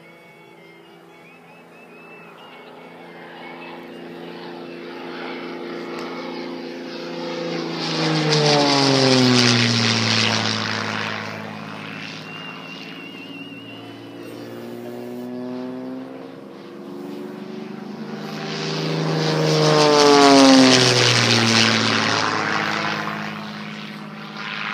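Propeller-driven giant-scale radio-controlled warbird model making two passes overhead. Its engine note swells and then drops in pitch as it goes by, about nine seconds in and again near twenty seconds, and the second pass is the louder.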